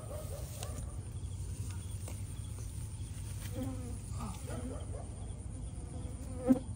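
Night insects such as crickets chirping steadily over a low hum, with one sharp knock close to the microphone near the end.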